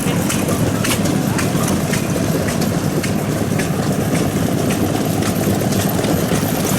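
An old engine running steadily at idle, with faint irregular clicks over the running.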